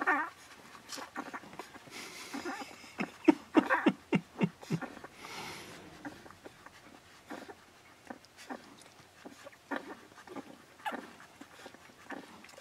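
Twelve-day-old Akita puppies squeaking and whimpering while they nurse and jostle at their mother's teats: a wavering squeal at the start, a flurry of short squeaks about three to four seconds in, then scattered squeaks.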